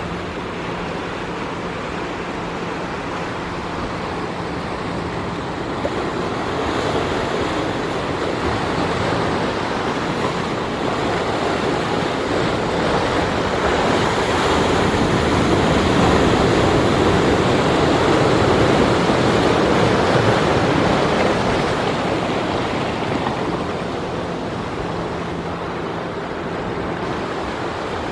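Sea surf washing onto the shore and breaking over rocks, a steady rush of water that swells louder through the middle and eases again near the end.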